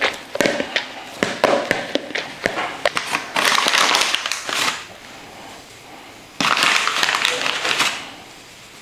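Hands working dough in a bowl, with small knocks and taps. Then come two rustling hisses, about three and a half and six and a half seconds in, as flour is shaken from a paper bag onto the worktop.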